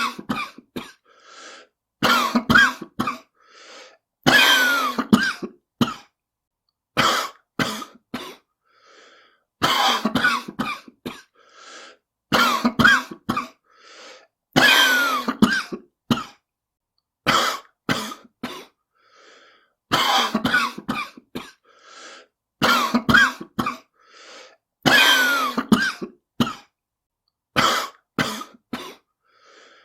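A person coughing in repeated fits, several sudden coughs at a time, a fit every two to three seconds: a smoker's cough.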